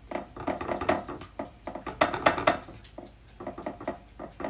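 Quick clusters of light taps and clicks from kitchen handling while a piece of walleye is dredged in flour on a plate. There are three bursts, near the start, around the middle and near the end.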